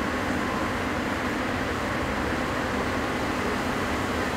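Steady factory-hall hum of machinery and ventilation: an even rushing noise with a faint low drone underneath and no separate knocks or clanks.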